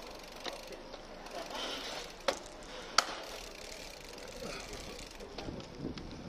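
Bicycle freewheel ticking as the bike coasts slowly on a gentle descent, with two sharp clicks a little past two and three seconds in, the second the loudest.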